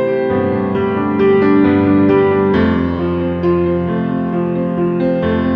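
Background piano music: a slow melody of held notes over sustained chords.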